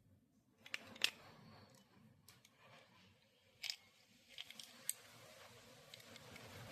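A few scattered light clicks and taps over faint background noise, the sharpest about a second in and again near four seconds in.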